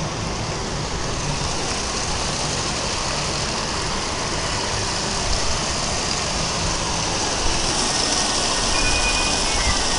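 A steady rushing noise that grows a little louder over the last few seconds.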